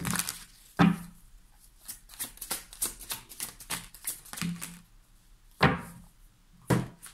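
Tarot cards being shuffled in the hands: a quick run of flicks in the middle, with four sharp slaps as cards are tapped and laid down on the table, two near the start and two near the end.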